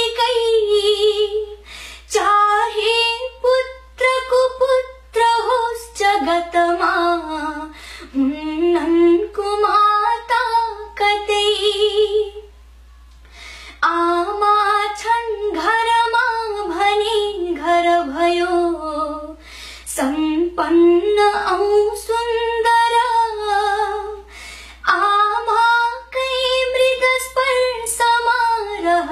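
A woman singing a Nepali poem unaccompanied, in a melodic chant of short phrases with a brief pause about halfway through.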